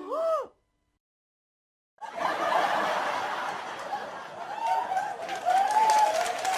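The tail of a short vocal sound effect cuts off about half a second in. After a gap of silence, a crowd laughing starts about two seconds in: a studio-audience laugh-track sound effect.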